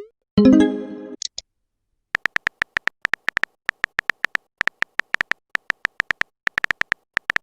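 Chat-app sound effects: a run of short, same-pitched electronic beeps of simulated typing, a brief chime just after the start, and a quick rising bloop at the very end.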